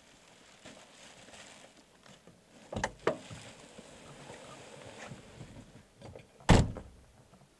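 A station wagon's door is opened with two sharp clicks about three seconds in, then a loud, heavy thud near the end.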